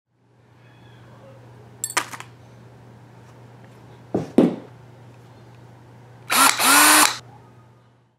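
Power drill run in two quick pulses, its motor whine rising and falling each time, over a low steady hum. Two shorter knocks or handling noises come before it.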